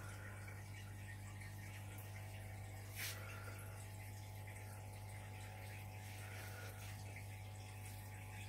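Steady low hum with a light hiss over it, and one sharp click about three seconds in.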